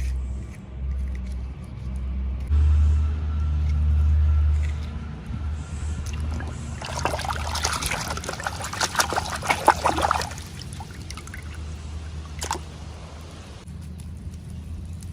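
Handling noises: a low rumble, then about three seconds of dense crackling and rattling near the middle, and a single click a little later.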